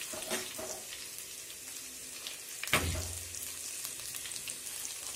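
Chopped garlic, ginger, dried red chillies and curry leaves sizzling in hot coconut oil in a pot, stirred with a steel spoon. A few light scrapes near the start and one sharp knock of the spoon against the pot a little under three seconds in.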